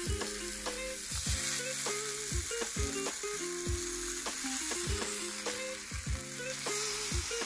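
Lard-smeared masa gorditas sizzling in a hot frying pan, a steady frying hiss as the cheese starts to melt. Low background music with a beat plays underneath.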